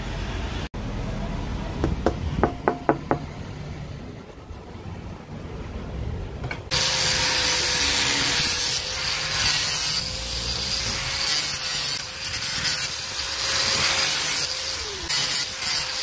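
Bosch angle grinder with a thin cutting disc cutting sheet metal: from about seven seconds in, a loud harsh hiss of the disc in the metal over the motor's steady whine, which sags in pitch briefly near the end as the cut loads it. Before that, a quick run of about five knocks.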